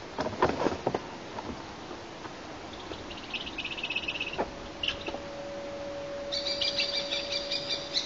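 Common kestrel giving two bouts of rapid, high chattering alarm calls, the second near the end. In the first second or so, eagle wingbeats and branches rustle.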